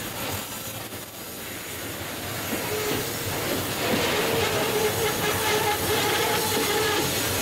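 Freight train of covered grain hopper cars rolling past close by: steel wheels rumbling and clacking over the rail joints. About three seconds in, a steady high wheel squeal sets in and the sound grows louder.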